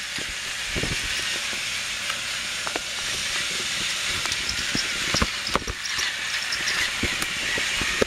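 Battery-powered TrackMaster toy trains running on plastic track: a steady whirring hiss from their small motors and wheels, with scattered clicks and knocks.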